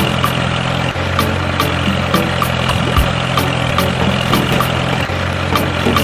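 Diesel engine idling sound of heavy machinery, a steady low hum, with a regular sharp ticking beat about three times a second on top.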